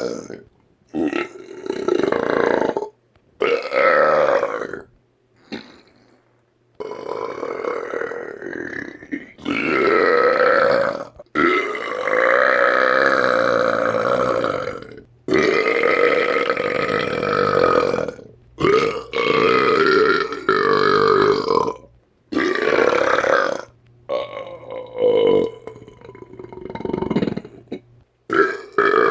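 A man belching a run of large burps, about ten in a row, each lasting one to four seconds with a wavering pitch, with abrupt silences between them.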